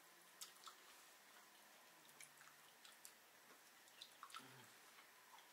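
Faint wet chewing and mouth clicks of people eating fatty barbecued pork ribs, with a short low hummed voice sound about four seconds in.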